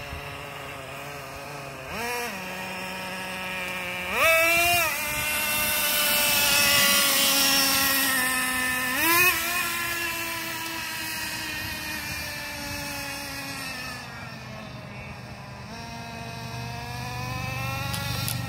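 Nitro-powered RC truck engine, a Traxxas Revo 3.3, running as the truck drives. It gives sharp revs about two, four and nine seconds in, the pitch sagging slowly after each, and climbs gradually again near the end.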